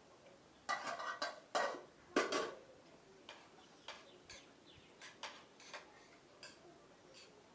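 Spoon scraping and clinking against a plate while eating: three louder scrapes in the first couple of seconds, then a string of light clicks about every half second.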